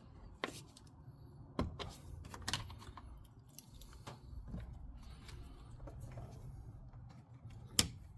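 A few scattered light clicks and knocks from hands and tools handling fittings under the bonnet, the sharpest near the end.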